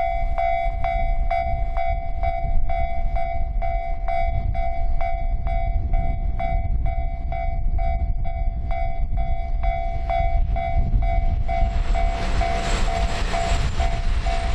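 Railway level-crossing alarm ringing its two-note electronic bell about twice a second. About eleven and a half seconds in, a train's running noise builds up over it as the train comes through.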